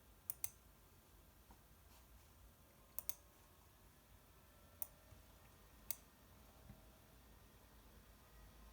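Computer mouse clicking: two quick double-clicks, then two single clicks a couple of seconds apart, over a faint low hum.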